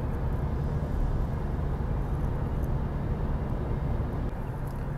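Car cruising at a steady 120 km/h on a highway, heard inside the cabin: an even rush of tyre and road noise over a constant low engine drone.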